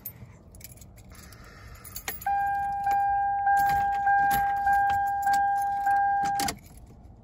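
Keys jingling and clicking, then the 1999 Toyota Camry's dashboard warning chime: a steady electronic tone that repeats a little under twice a second for about four seconds and stops abruptly.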